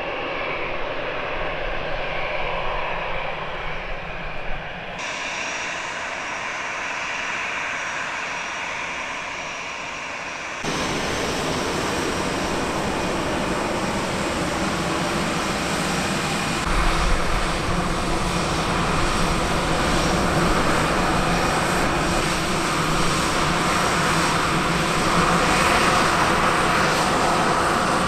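Turbofan engines of an easyJet Airbus A320-family jet airliner running at taxi power as it rolls past close by, a steady jet hum and whine. The sound changes abruptly twice, about five and eleven seconds in, and is louder and fuller in the second half.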